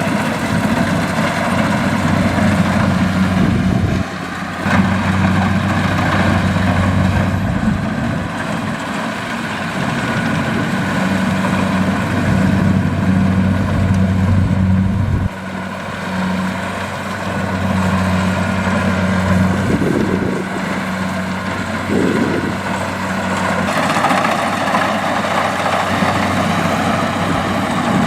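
Kubota combine harvester's diesel engine running steadily with a low drone, under a noisy rattle of machinery, harvesting rice. The sound changes abruptly twice, about 4 and 15 seconds in.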